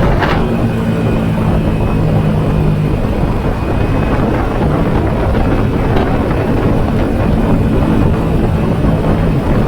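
Yamaha Sniper 150's single-cylinder four-stroke engine and exhaust running under way, over a constant rush of riding noise. The engine note holds mostly steady, easing off briefly a little past three seconds in and picking up again about five seconds in.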